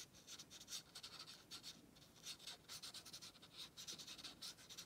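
Faint, soft scratchy strokes of a water brush pen's tip brushing over watercolour paper, spreading wet ink in short, irregular strokes.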